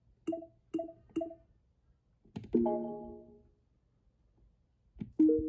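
Nintendo Alarmo's menu sounds: four quick pitched ticks as its dial is turned, then a short chiming tone that fades over about a second, and another brief tone near the end.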